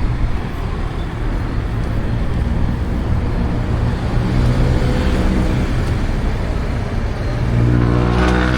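Road traffic running steadily, with a vehicle engine getting louder and closer near the end.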